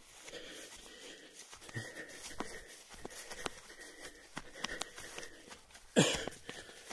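A runner's heavy breathing, in puffs every second or so, with scattered footfalls while running downhill; a louder sudden thump or rush of noise about six seconds in.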